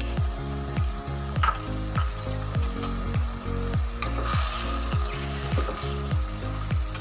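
A spoon stirring fenugreek leaves and mung dal in a sizzling oiled pan, with background music keeping a steady beat of about two thumps a second.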